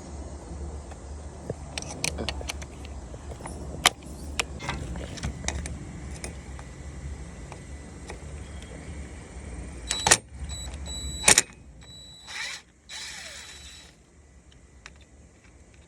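Clicks and metallic knocks of hand tools and parts being handled over a steady low hum that stops about eleven seconds in. Near the end come two short electric whirs of a cordless drill driving a Torx bit on the radiator bolts.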